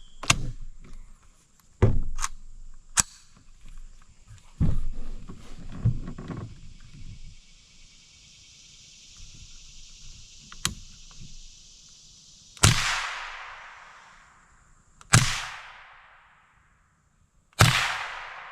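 Winchester Wildcat .22 LR rifle with a SilencerCo Sparrow 22 suppressor firing Federal AutoMatch rounds: sharp cracks, the last three about two and a half seconds apart, each followed by a long fading echo. Several shorter sharp knocks come first.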